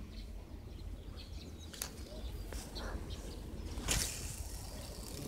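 Steady low outdoor rumble, like wind on the microphone, with a couple of sharp clicks from handling a spinning rod and reel; the loudest click comes about four seconds in.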